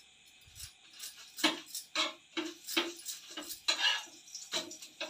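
Metal spatula scraping and tapping on a tawa (flat griddle pan) as a roti is turned and pressed: a string of short clinks and scrapes, about two a second, some with a brief metallic ring.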